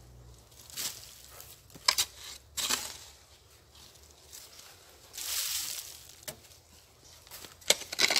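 A hand hoe chopping into packed soil and dry leaf litter and dragging it. There are sharp strikes about two seconds in and twice near the end, with a longer scraping rustle in the middle.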